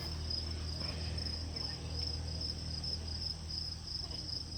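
Insects trilling in a steady chorus, a high pulsing buzz that does not stop, with a low steady hum underneath.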